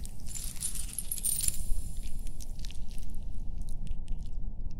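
A dense burst of sharp, high clicking and crackling for about the first second and a half, then scattered single clicks, over a low steady rumble.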